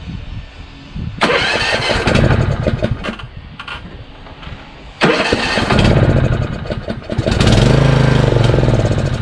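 Small riding mower's engine being cranked on its electric starter in three tries, about a second in, around five seconds in and near the end, turning over in quick, even pulses without catching. The owner puts the failure to start down to the engine not getting any gas.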